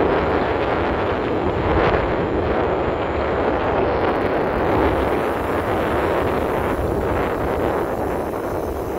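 Wind rushing over the camera microphone while riding a bicycle: a loud, steady rumbling noise.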